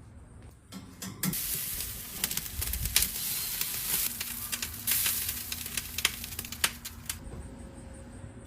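Food sizzling and crackling on a hot surface. The sizzle starts about a second in and falls away near the end.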